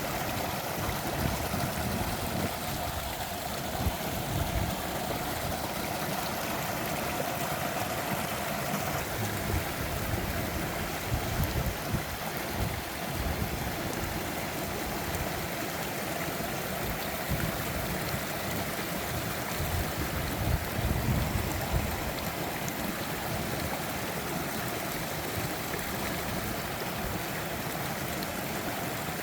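Three-tiered mountain waterfall: water rushing and splashing steadily, with low rumbling surges now and then.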